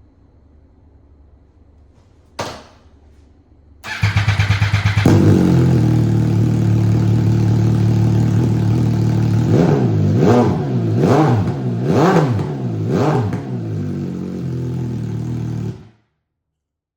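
2019 MV Agusta Turismo Veloce's 800 cc inline three-cylinder engine run with its exhaust silencer removed, loud. After a short sharp click the starter cranks for about a second, the engine catches and idles, then is revved four times, rising and falling, before it is switched off abruptly near the end.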